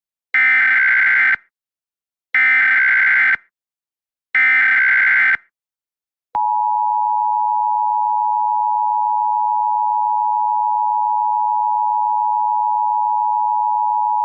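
Emergency Alert System SAME header: three identical one-second screeches of digital data, about two seconds apart. After a short pause comes the EAS two-tone attention signal, a steady dual-pitch alarm held for about eight seconds. Together they mark the start of a new emergency alert.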